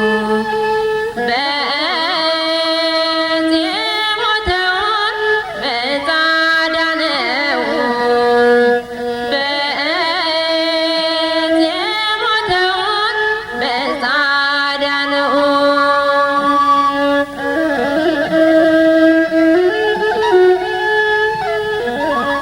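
Hymn music: a winding, ornamented melody over a steady held drone.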